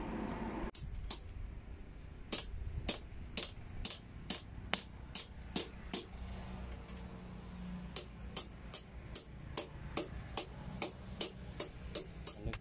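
Hand hammer striking a red-hot steel bar on a small post anvil: sharp metallic strikes with a short ring, about two a second at first, quickening to about three a second in the second half.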